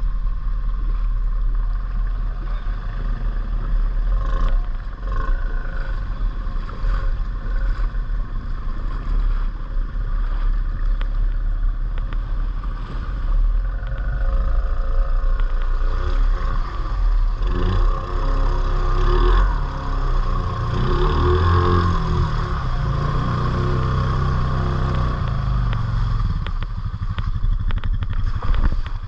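ATV engine running under load, its pitch rising and falling with the throttle in the second half, over a steady low rumble.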